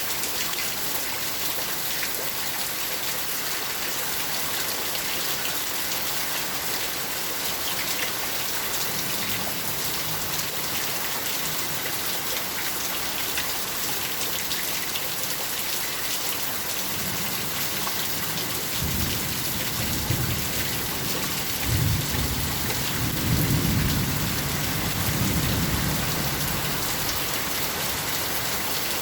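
Steady rain falling, with a low rumble of thunder rolling in during the second half, loudest a little past the middle.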